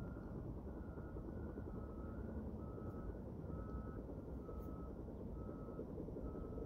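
Distant construction machines' reversing alarms beeping steadily, two beepers at slightly different pitches overlapping, over a low rumble of engines.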